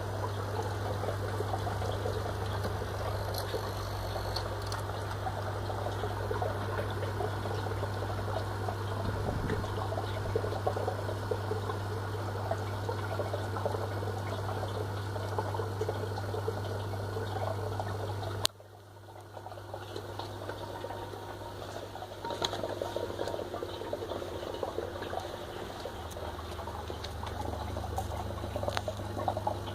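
Fluval FX6 aquarium canister filter running with a steady low electrical buzz over the trickle of water moving through it; the buzz comes from a filter that is otherwise working perfectly. About two-thirds of the way through the sound cuts off with a click, then the buzz comes back fainter.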